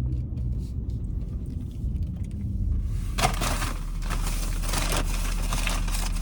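Steady low rumble of a car interior, joined about three seconds in by crinkling and rustling that runs on to the end.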